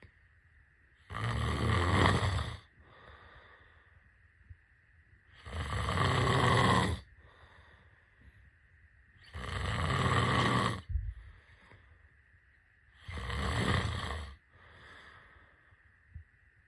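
A person snoring: four loud snores on the in-breath, about one every four seconds and each about a second and a half long, with softer breaths out between them. A faint steady high hum runs underneath.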